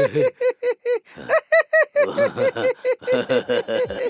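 Cartoon character voices laughing in quick, rhythmic 'ha-ha-ha' pulses, about six a second, with a short break about a second in.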